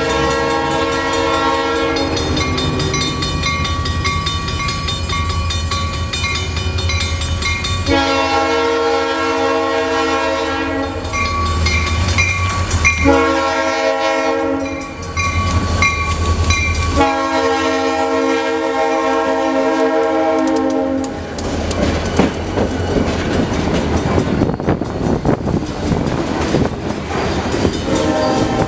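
Diesel locomotive sounding its horn, a chord of several notes, in long, long, short, long blasts, the grade-crossing signal, over a steady engine rumble. From about 21 seconds in, the train's cars pass with clickety-clack rattling of wheels over rail joints, and the horn starts again at the very end.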